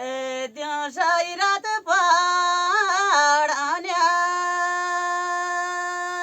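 Unaccompanied solo voice singing: a phrase of quick ornamented turns in the first few seconds, then one long, steady high note held to the end.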